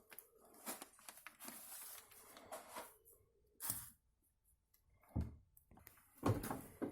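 Faint workshop handling noises from taking apart an ATV's front differential: scattered light clicks and rustles of metal parts and tools, with a couple of sharper knocks about halfway through.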